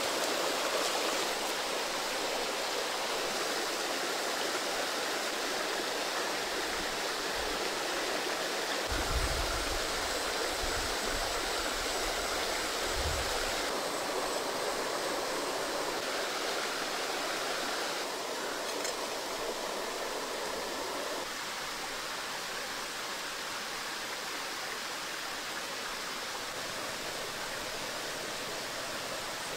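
Steady rush of running stream water. A few low thuds come about nine to thirteen seconds in.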